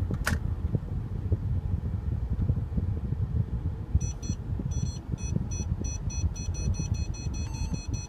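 Parking-sensor warning beeps of a Mercedes-Benz SL550, starting about four seconds in and repeating rapidly as the car reverses into a parking spot under its automatic parking assist, signalling an obstacle close behind. A low rumble fills the cabin underneath.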